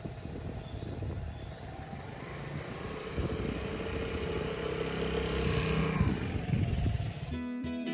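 Vespa GTV300 scooter's single-cylinder four-stroke engine running at idle, then rising in pitch as the scooter pulls away. Guitar music cuts in near the end.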